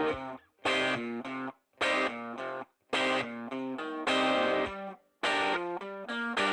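Background music: a distorted guitar playing short phrases of notes, each about a second long, broken by brief gaps.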